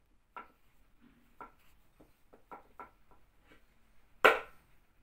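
A series of light taps and knocks from shaping a sesame-coated pastry by hand on the work surface, with one much louder sharp knock about four seconds in.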